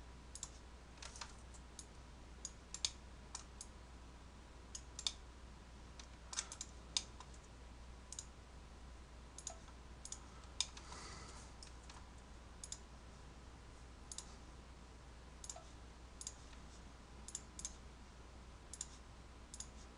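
Scattered, irregular clicks of a computer mouse and keyboard, single and in quick pairs, over a faint steady low hum.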